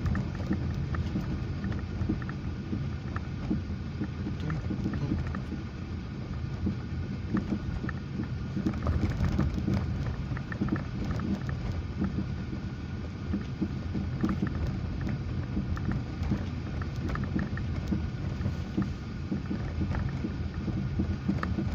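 Car suspension knocking irregularly as the car drives over small road irregularities, heard from inside the cabin over a steady low road rumble and hum. It is a knock with a hum that comes almost constantly, even on fairly smooth road.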